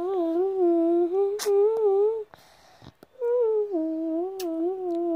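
A voice humming a wordless tune in two long, smoothly gliding phrases with a short break between them, with a sharp click about a second and a half in.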